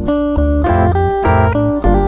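Instrumental background music: a plucked guitar melody, several notes a second, over a bass line.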